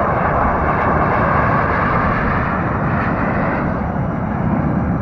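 Jet airliner passing low overhead, a steady engine roar whose pitch sinks lower about four seconds in.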